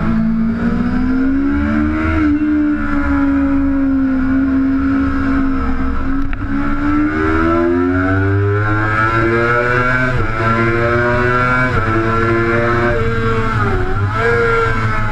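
Sport motorcycle engine at racing speed, heard from on board. Its note climbs as the bike accelerates and dips sharply several times in the last few seconds as it shifts and brakes.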